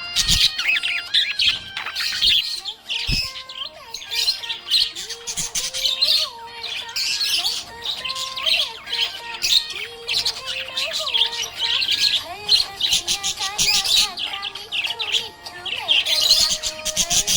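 Budgerigar chirping and warbling in a fast, continuous chatter of high chirps.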